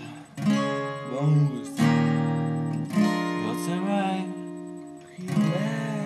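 Acoustic guitar strumming chords, four strokes that each ring out, with male voices singing along between them.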